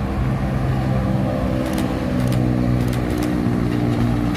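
Expressway traffic passing close by, led by a diesel truck engine running with a steady note, with a few short rattles in the middle.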